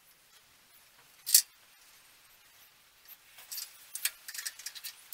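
Small metal parts and hand tools being handled at a milling-machine vise, with the mill not cutting. There is one sharp metallic click about a second in, then a quick run of light clicks and scrapes in the last two seconds.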